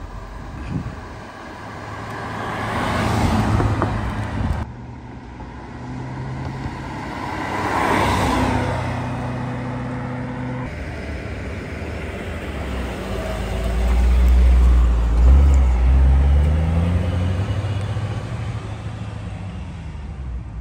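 2007 Shelby Mustang GT's 4.6-litre V8 through its upgraded exhaust, driving past: two quick pass-bys that swell and fade, then a loud, deep rumble as the car comes close at low revs, with the engine pitch climbing as it pulls away.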